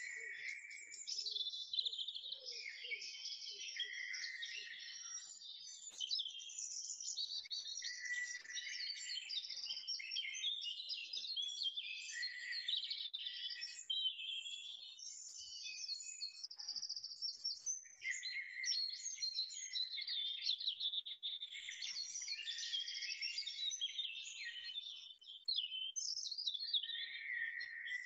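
Recorded woodland bird song: many birds singing over one another in a dense, continuous chorus of chirps and trills.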